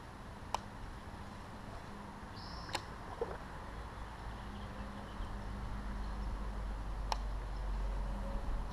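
Quiet creek-side outdoor ambience with three sharp clicks spread through it and a short high chirp about two and a half seconds in. A low rumble grows louder in the second half.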